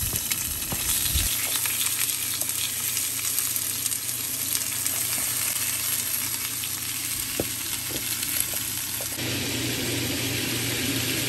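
Sliced sausage, mushrooms, peppers and broccoli sizzling steadily in a hot cast iron skillet, with a few light clicks as the food is stirred.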